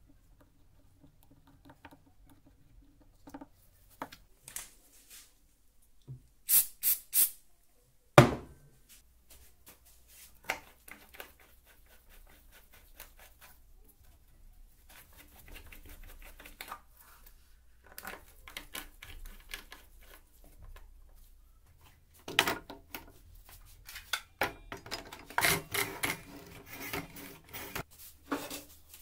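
Hand-fitting of a wooden jig: scattered knocks, clicks and rubbing of wood and metal parts being handled and set in place, with one sharp knock about eight seconds in and a busy run of knocks near the end.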